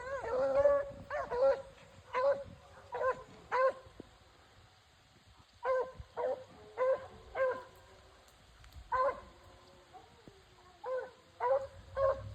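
Beagles baying on a rabbit's scent while running a chase: short, ringing, pitched bays, one after another in clusters, with a pause of a second or two twice.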